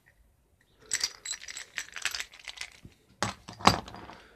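Steel nuts and washers on a bolt, a makeshift bushing press, clinking and rattling against each other as they are handled, then two louder metallic knocks near the end.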